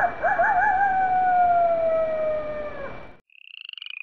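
A single long wolf howl, wavering at the start, then sliding slowly down in pitch and breaking off about three seconds in. Rapid pulsed trills start near the end.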